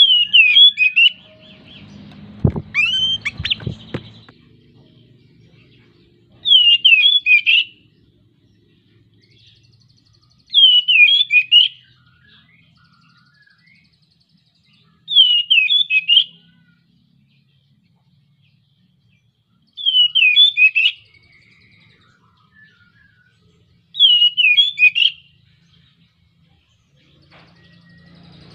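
Male oriental magpie-robin, a bird in breeding condition, singing the same short, intricate, high-pitched phrase about a second long, again and again roughly every four to five seconds. A couple of sharp knocks sound about three seconds in.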